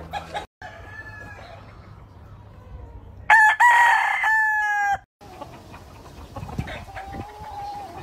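Game rooster crowing loudly once, a single call about a second and a half long that holds its pitch and drops slightly at the end. Fainter calls from other roosters sound before and after it.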